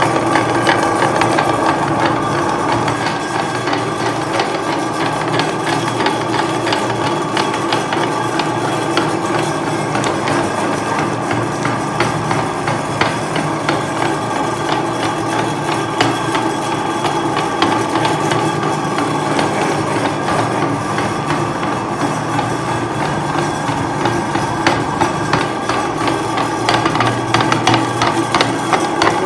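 Electric meat grinder running, its motor humming steadily as the auger turns in the hopper. Sharp clicks and rattles become more frequent near the end.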